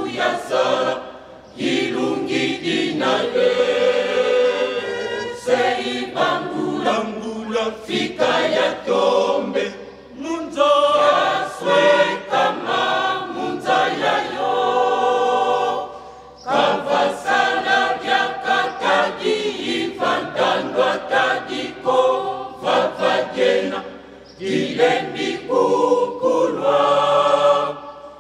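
A choir of men and women singing together, the song moving in phrases with brief pauses between them.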